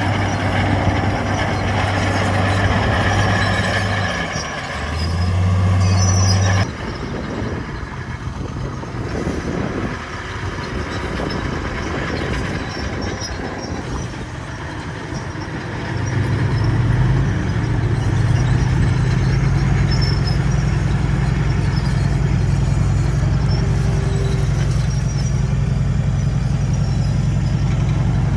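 Diesel engines of heavy earthmoving machinery running, with an abrupt change in the sound about a quarter of the way in. A bit past halfway an engine picks up to a steady, louder, higher note.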